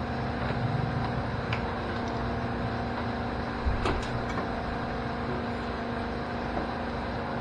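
A steady mechanical hum with several constant tones, like a motor or engine running, with one sharp click a little under four seconds in.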